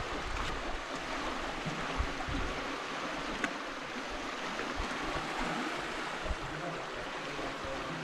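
Steady wash of calm sea water lapping among shoreline rocks, with occasional low thumps underneath.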